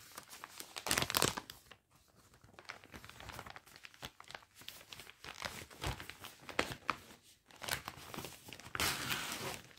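Plastic packaging of a cross-stitch kit crinkling and rustling as it is opened and its contents are taken out, in irregular bursts, loudest about a second in and near the end.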